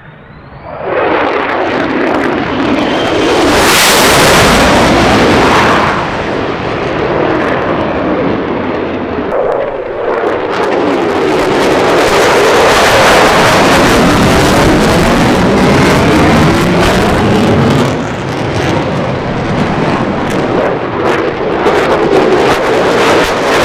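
Fighter jet engine noise from low airshow passes: a loud jet noise swells in about a second in, then an F-22 Raptor's engines run hard through a high-G maneuver. The noise sweeps and phases as the jets pass overhead.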